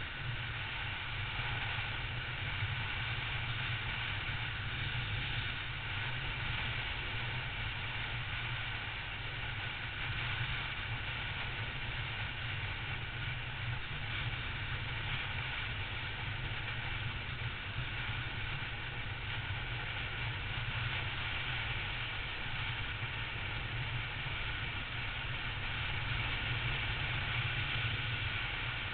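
Triumph Tiger motorcycle's three-cylinder engine running steadily at cruising speed, with wind and road noise, heard from a camera mounted on the bike.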